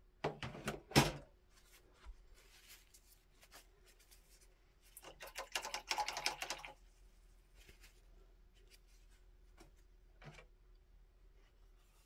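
Quiet clicks and taps of a paintbrush working on a palette: a few just after the start, then a quicker run of taps and scrapes from about five to nearly seven seconds, with scattered light ticks after.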